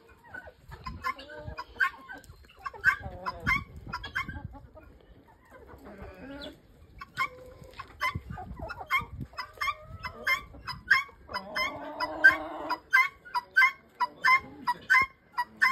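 A mixed flock of chickens clucking. The flock keeps up short overlapping calls, with one longer drawn-out call about twelve seconds in and a quick, evenly spaced run of short sharp calls near the end.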